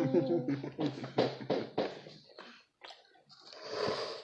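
A person humming a held 'mmm' with a mouth full of food, breaking into a low hum with a quick run of wet mouth clicks and smacks from chewing. A short noisy rustle comes near the end.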